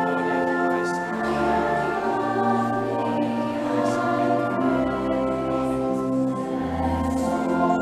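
A hymn: organ chords with singing voices, held notes moving on about once a second over a moving bass line.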